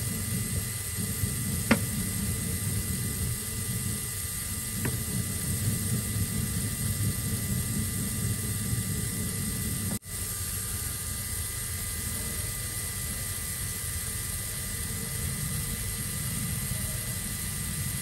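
Small electric DC motor of a homemade miniature concrete mixer running steadily with a low whirring hum, with a couple of faint ticks in the first few seconds and a brief break about halfway through.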